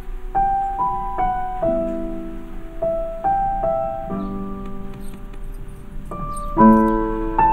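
Slow solo piano music: single notes and chords struck one after another and left to ring, with a fuller, louder chord near the end.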